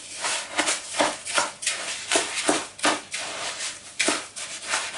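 Wet coarse sea salt mixed with egg white being stirred by hand in a plastic bowl: a repeated gritty scraping, about three strokes a second.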